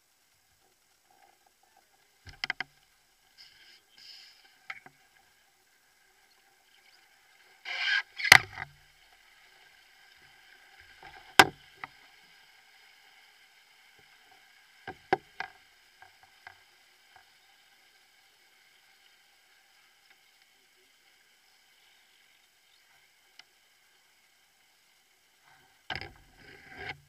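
Paddling in a canoe: scattered sharp knocks and bumps of paddles against the canoe, a handful of them with long quiet gaps between, the loudest about a third of the way in.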